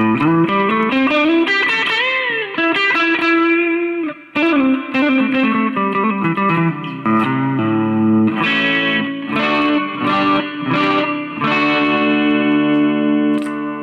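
Chinese-made Ibanez Jem7V electric guitar played clean on its neck pickup, mixing single notes and chords. About two seconds in, a note is bent up and back down, and near the end a chord is left to ring and fade.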